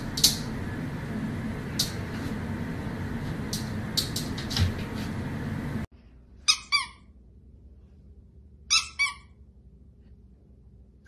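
Squeaky toy squeezed and released: two pairs of short, high-pitched squeaks a couple of seconds apart. Before them, a steady hiss with a few sharp taps.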